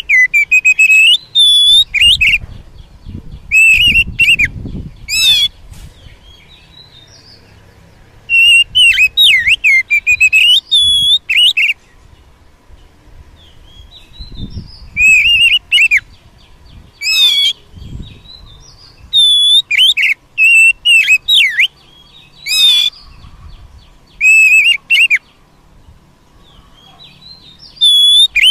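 Oriental magpie-robin singing: loud, varied whistled phrases with sliding pitch, delivered in bursts of one to four seconds with short pauses between.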